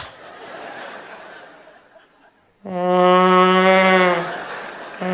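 A vuvuzela blown in one steady held note lasting about a second and a half, starting a little past halfway. A second blast begins right at the end.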